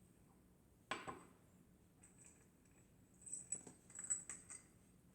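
Kitchen handling sounds: a single sharp knock, like a utensil or dish set down, about a second in, then a cluster of light clicks and crinkly rustles.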